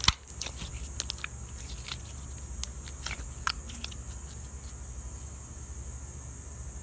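Putty-like slime being squeezed and poked by hand, giving scattered small sticky clicks and pops over the first few seconds, then only a steady background hiss and low hum.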